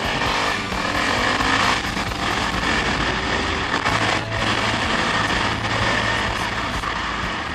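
Trail bike engine running steadily under way, heard through a helmet-mounted camera with wind rush over the microphone; the engine note dips briefly about four seconds in.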